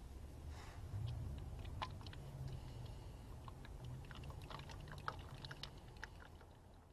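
Fresh motor oil being poured from a bottle into the engine's oil filler, making a steady low pouring sound with scattered light clicks and ticks from the plastic bottle.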